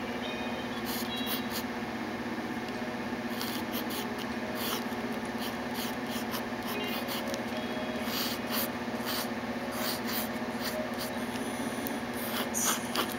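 Pencil scratching on paper in quick, short sketching strokes, denser and louder in the second half, over a steady low hum.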